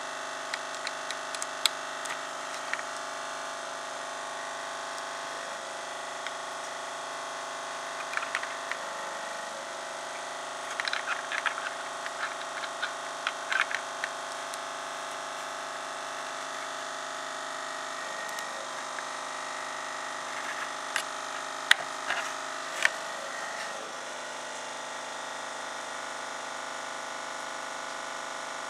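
Hands handling a perfboard circuit on a wooden tabletop: scattered clicks, taps and rubbing in several short clusters, the sharpest clicks a little past 21 and 22 seconds in. A steady electrical hum runs underneath.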